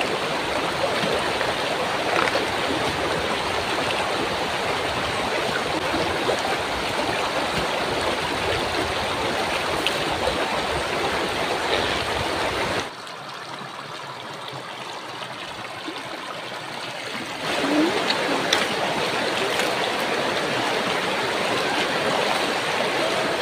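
Shallow rocky river flowing: a steady rush of water over stones. It drops quieter for a few seconds about halfway through, then comes back up.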